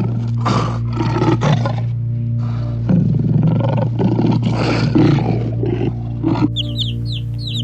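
A large wild animal roaring in a run of loud, rough bursts of about half a second to a second each, over a steady low hum. Near the end the roaring stops and high, short peeping calls begin.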